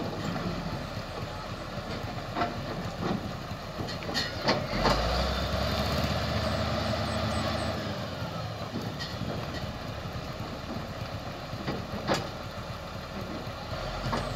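Heavy diesel engine running, its rumble picking up for a few seconds about five seconds in, with a few sharp metallic clanks.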